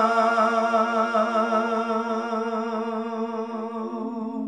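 A man's unaccompanied voice holding the long closing note of a sung line of Gojri bait verse, steady in pitch with a slight waver, slowly fading away.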